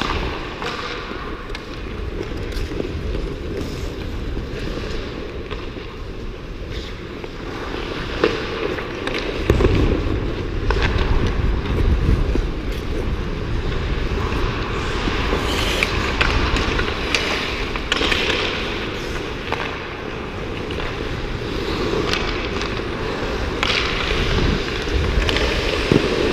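Ice hockey play on the rink: skate blades scraping and carving the ice, with sticks and puck clacking sharply now and then, starting at a faceoff. From about ten seconds in, wind buffets the microphone as the wearer skates faster.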